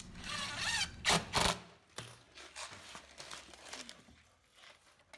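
A cordless drill-driver's motor briefly whirs, its pitch rising and falling, followed by two sharp knocks just over a second in. After that there are only faint handling sounds.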